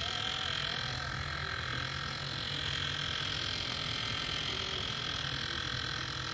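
Steady outdoor background noise by a road: a low hum under an even hiss, with no distinct event standing out.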